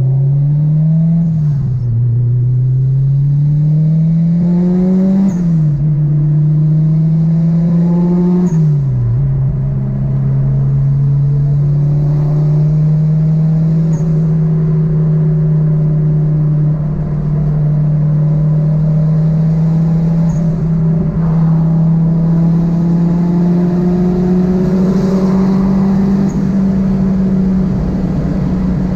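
Car engine heard from inside the cabin, accelerating hard through the gears: the engine note climbs and drops sharply at three upshifts in the first nine seconds. After that it holds a steady drone at cruising speed, its pitch creeping slowly up.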